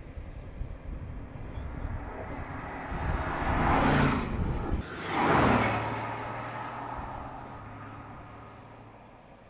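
Mercedes-AMG GT's twin-turbo V8 sports-car engine climbing as the car approaches under acceleration, with a short break between two loud peaks about four and five and a half seconds in. It then sweeps past, dropping in pitch, and fades as the car drives away.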